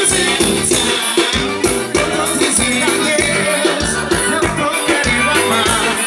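A band playing upbeat dance music: a bouncing bass line under a steady, even beat, with melody parts on top.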